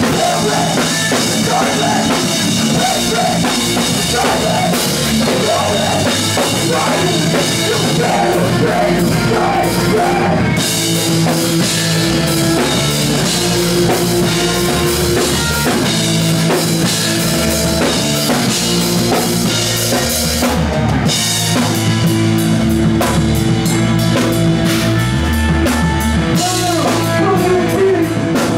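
A live rock band playing loud and without a break: a drum kit with cymbals and guitar.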